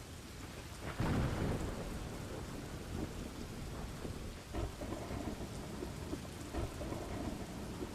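Rain falling steadily in a thunderstorm, with a louder roll of low thunder coming in about a second in and lesser rumbles after it.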